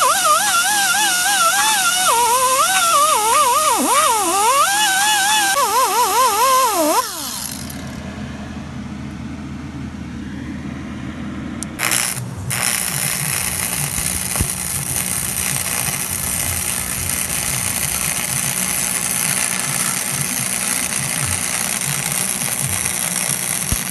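Angle grinder whining against the steel truck rim, its pitch wavering as it bites, for about the first seven seconds; then a low steady hum. From about twelve seconds in, a wire-feed welder crackles steadily as holes in the rim are filled with weld.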